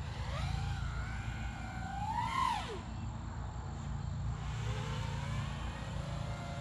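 FPV quadcopter's motors and propellers (3BHobby 2306 2500kV motors) whining as the throttle changes. The pitch climbs for about two seconds, peaks and drops sharply about two and a half seconds in, then rises again more softly near the end, over a steady low rumble.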